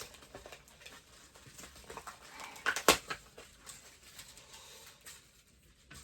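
Light clicks and rustles of hands handling a boxed toy doll and its packaging, with one sharper snap about three seconds in.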